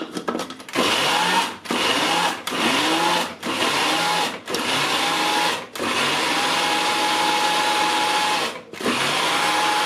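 Small electric chopper puréeing fresh strawberries with no water added, run in short pulses: about seven bursts of motor whine, each spinning up in pitch as it starts, the longest run about three seconds near the end.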